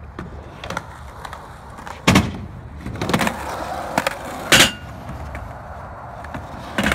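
Skateboard rolling on concrete ramps and flat, with several sharp clacks of the board, the loudest about two-thirds of the way through, with a brief ringing after it.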